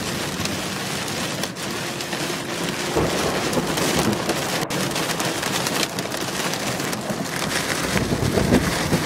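Heavy rain falling on a car, a dense steady hiss of drops.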